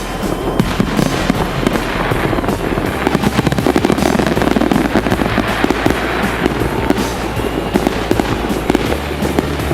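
Fireworks crackling and popping in a dense, rapid stream, with rock music playing over them.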